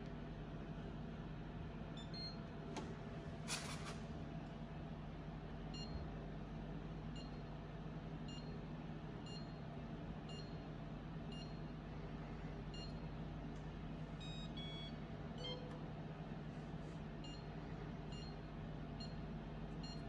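Beko dishwasher's touch control panel giving short, faint high beeps as its buttons are pressed. Starting about six seconds in, the beeps come evenly, about one every 0.7 s, with a short multi-note beep near the middle, over a steady low hum.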